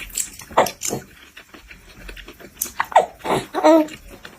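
A baby making short wordless vocal sounds, with clicking mouth and eating noises in between.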